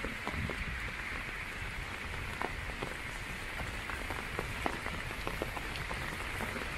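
Steady rain falling on a wet street, with scattered drops tapping on an umbrella overhead.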